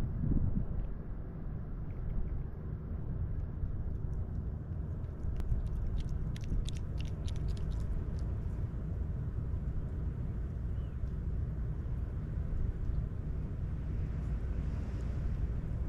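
Steady low rumble of wind on the microphone, with a quick run of small sharp crunches about five to seven seconds in as a pine marten chews its food.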